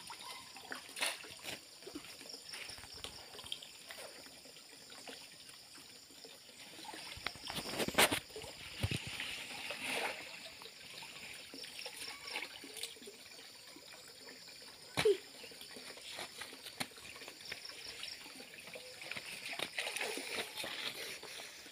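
Muddy pond water sloshing and trickling as a man wades waist-deep and grabs at fish by hand. Sharp splashes come throughout, the loudest about 8 seconds in and again about 15 seconds in.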